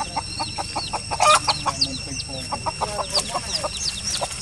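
A mother hen clucking in quick, short notes while her chicks peep in high, falling chirps, with one louder, harsher cluck about a second in.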